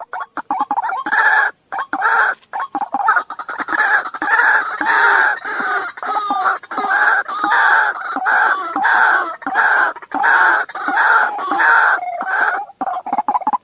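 White-breasted waterhen calling loudly, one call repeated about twice a second, with faster chattering at the start and again near the end.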